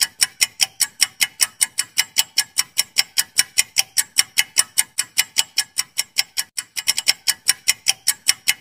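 Clock-ticking sound effect for a quiz countdown timer: sharp, even ticks about four a second. The rhythm stumbles briefly about two-thirds of the way through.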